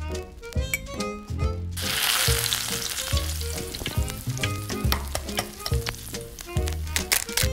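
Butter sizzling as it melts in a hot miniature metal wok, starting suddenly about two seconds in and carrying on steadily. Background music with a steady beat plays throughout.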